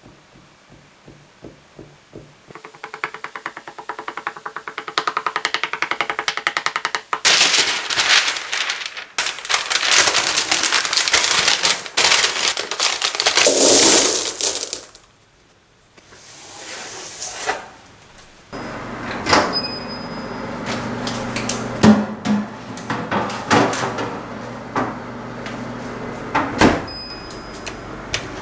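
Fork tines tapping on a chocolate tart crust in quick, even taps that speed up as the base is pricked. Then parchment paper crinkles loudly as it is pressed into the tart shell, and ceramic pie weights rattle as they pour from a cloth bag. Near the end the weights knock and click as they settle and are spread in the lined shell.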